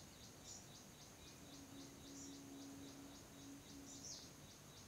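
Near silence, with faint high ticking repeating about five times a second and a few brief high chirps.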